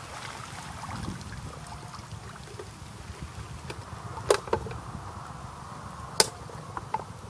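Fishing line being wound onto a plastic bottle held close to a plastic bucket, with light plastic knocks: two sharp clicks about four and six seconds in and a couple of fainter ones. A steady low rumble runs underneath.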